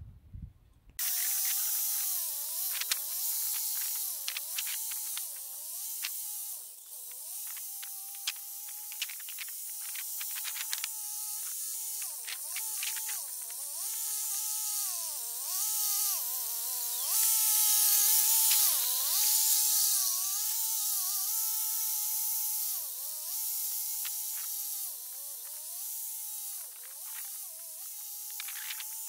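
Small tractor engine working a rotary tiller: a high-pitched engine whine that starts about a second in. Its pitch keeps dipping and recovering as the engine takes load, over a steady hiss.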